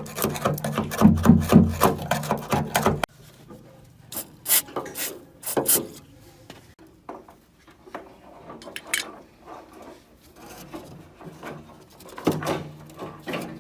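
Rapid rubbing and scraping strokes over a low hum for about three seconds, stopping abruptly. Then scattered single scrapes and knocks, as from hand work on a rusty car wing panel.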